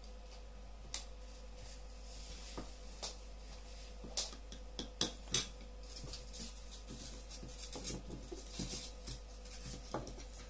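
Hard plastic parts of an ear-muff headphone being handled: a red ear cup and a speaker plate knocked and fitted together, giving scattered clicks, taps and rustling, sharpest about four to five and a half seconds in and again near the end.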